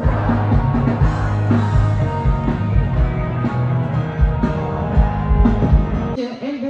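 Rock band playing loud through a PA: a steady drum beat under sustained chords. It cuts off abruptly about six seconds in.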